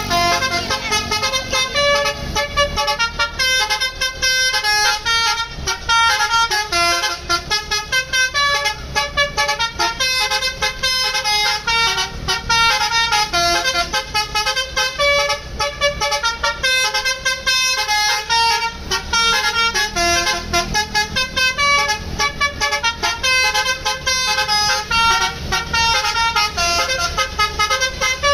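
A bus's basuri v3 'telolet' multi-tone air horn playing a fast, continuous melody of short notes, over the low rumble of the bus's engine.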